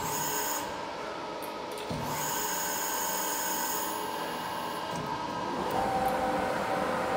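Edwards Pearson 60-tonne CNC press brake running: a steady mechanical hum with a high-pitched whine at the start and again from about two to four seconds in. Near the end the hum shifts to a lower tone.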